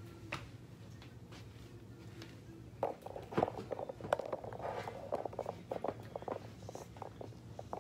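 Handling noise from a camera being picked up and repositioned: a knock near the start, then from about three seconds in a run of clicks, bumps and rustling close to the microphone.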